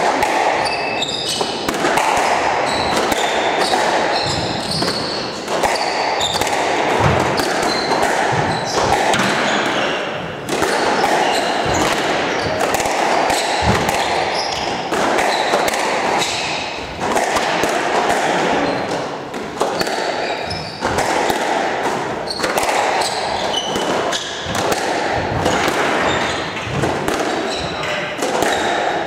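Squash rally: the ball knocks sharply and irregularly off rackets, the front and side walls and the wooden floor, with short high squeaks from the players' shoes on the court floor. The knocks echo in the enclosed court.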